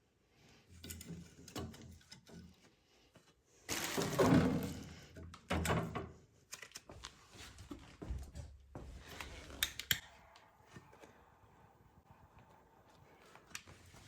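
Irregular knocks, thumps and clicks of things being handled, the loudest a heavier thump with a short scrape about four seconds in.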